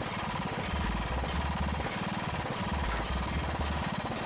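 A 12.5-horsepower overhead-valve riding-mower engine running just after starting, a little choppy, its low note surging about once a second. The owner puts the rough running down to a bent carburetor linkage and a dirty carburetor.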